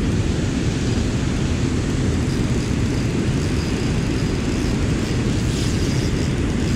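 Steady low roar of water pouring over a dam spillway close by, with no let-up.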